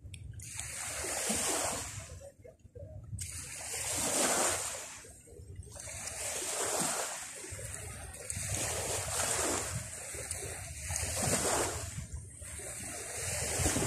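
Sea waves washing onto a beach, the surf swelling and falling back roughly every two to three seconds.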